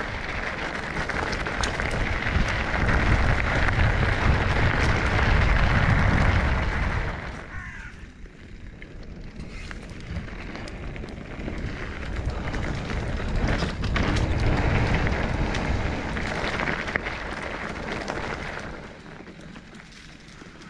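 Wind rushing and buffeting over an action camera's microphone. It is strong for about the first seven seconds, drops off, swells again in the middle and fades near the end.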